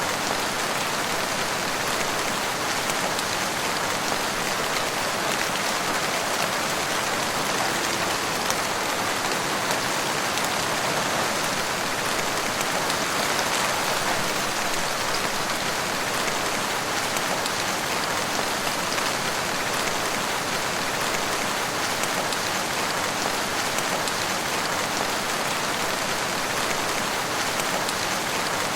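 Steady, even rain falling in a forest.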